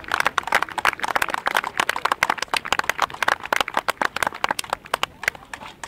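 Scattered clapping from a small crowd of spectators, dense and irregular, thinning out near the end.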